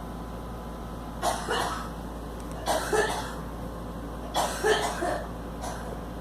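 A girl coughing in three pairs of coughs, about a second and a half apart, then one fainter cough near the end.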